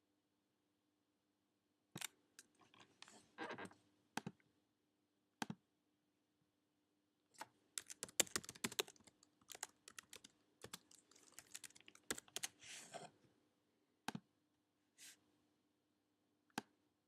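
Typing on a computer keyboard: two quick flurries of key clicks, with a few single clicks between and near the end.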